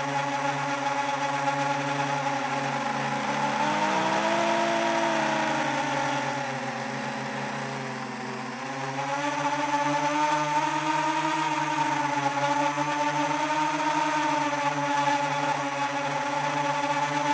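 Brushless motors and propellers of a 7-inch FPV quadcopter whirring in flight, the pitch rising and falling with throttle. The sound drops lower and quieter about eight seconds in, then picks up again a second later.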